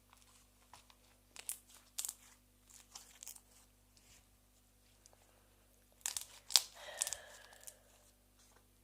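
Slime being worked by hand, crackling and popping in two clusters of sharp clicks, the second with a short squeak.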